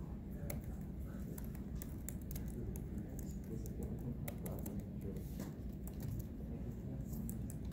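Scattered light clicks of keyboard typing over a steady low room hum.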